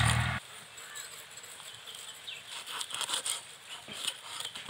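Knife chopping through snakehead murrel fish into steaks on a wooden log: irregular short knocks and crunches, thickest in the middle. A loud low rumble cuts off suddenly just after the start.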